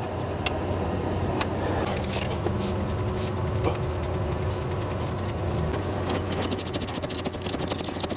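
Hand tools clicking against metal while a starter is bolted back in, over a steady low hum. A run of rapid clicking starts about six seconds in.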